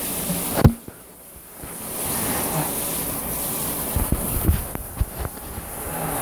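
Shower sprayer water running in a steady hiss, dropping away briefly after a sharp knock under a second in and then coming back, with a few handling knocks near the middle.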